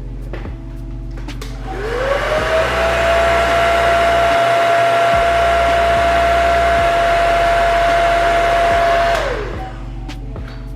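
Hair dryer switched on: its motor whine rises to a steady pitch over a loud rush of air, runs for about seven seconds, then winds down as it is switched off.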